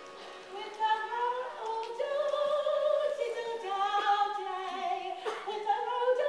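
A singer's voice with vibrato, held notes gliding up and down, in a live stage musical heard from the theatre audience.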